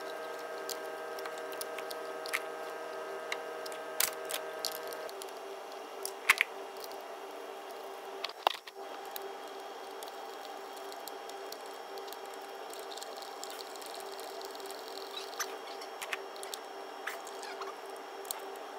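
Scattered light clicks and knocks of the front timing-belt cover and its fasteners being fitted back onto the 2.0 TDCi engine by hand, over a steady hum. The sharpest knocks come about 4, 6 and 8½ seconds in.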